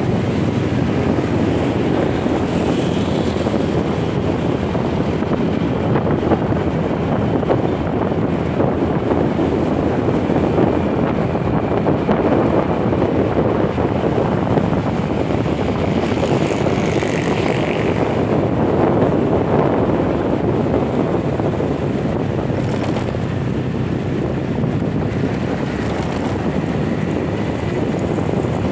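Steady running of a motorcycle ridden along the road, with wind rushing over the microphone and a constant road noise.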